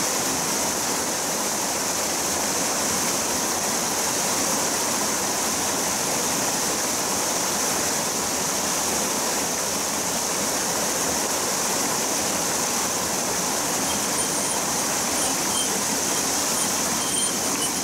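Steady rush of water pouring over a small weir into a stream pool: an even, unbroken splashing noise that stays at one level throughout.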